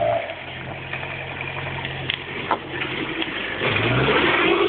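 Toyota Hilux engine running as the truck drives through mud, holding steady at first and then rising in pitch as it is revved about three and a half seconds in, with a rush of noise and a few knocks alongside.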